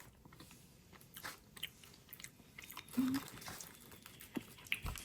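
A person chewing and biting food with small crunching clicks, close to the microphone, with a brief low voiced sound about three seconds in.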